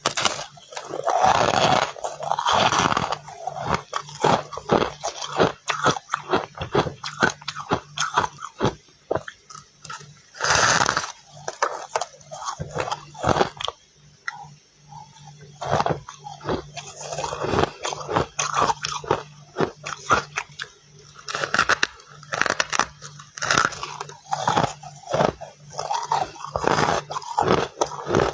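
Close-up biting and chewing of crunchy freezer frost: runs of crisp crunches with short pauses between bites, over a faint steady low hum.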